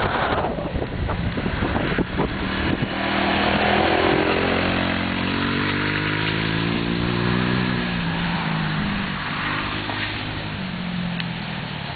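A 200cc four-wheeler (ATV) engine running as it is ridden, its note rising a few seconds in, holding, then falling and fading away. Wind noise is on the microphone at the start.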